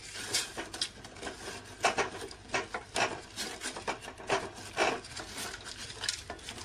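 Wooden spatula scraping round the bottom and sides of a steel pot in quick, uneven strokes while stirring jaggery into water to dissolve it.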